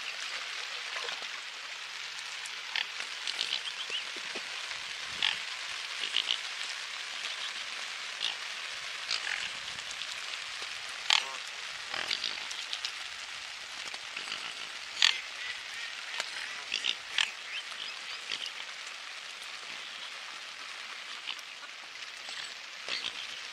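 Steady hiss of rain falling on a lake surface, broken by scattered short, sharp sounds from the mute swans and mallards feeding at the water's edge.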